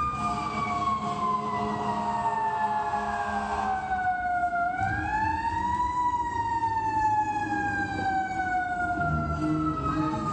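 Wailing, siren-like tone in a winter guard show soundtrack, played through gymnasium speakers: a single pitch slides slowly down, swoops up again about four and a half seconds in, and slides down once more, over a low steady rumble.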